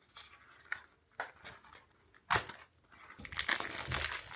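Packaging of a Sonny Angel blind-box figure being torn open: a few light clicks, a sharp knock a little over two seconds in, then steady crinkling from about three seconds in.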